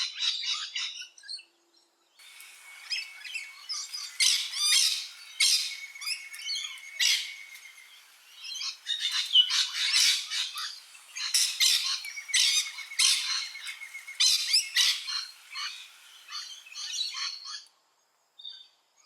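Rainbow lorikeets calling: harsh, shrill screeches and chatter in repeated bursts, with a short pause about two seconds in and another near the end.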